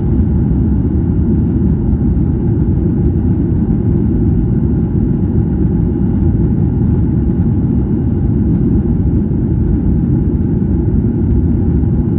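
Steady low rumble of an airliner's engines and airframe heard inside the passenger cabin, with a faint steady high tone above it.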